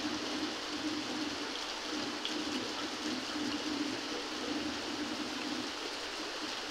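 Heavy rain falling steadily on a flat rooftop.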